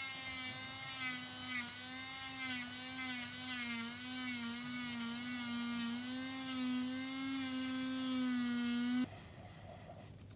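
Handheld rotary motor tool with a cutting disc running and cutting through a resin casting block: a steady whine that wavers slightly in pitch as the disc bites, with a hiss of cutting. It stops suddenly about nine seconds in.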